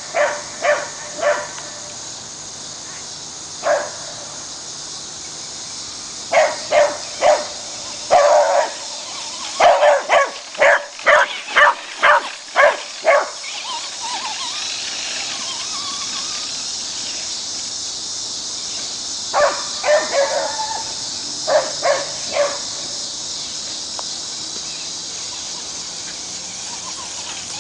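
Beagle barking in bursts of short, quick barks, several runs of them, with the fastest and loudest run about ten seconds in.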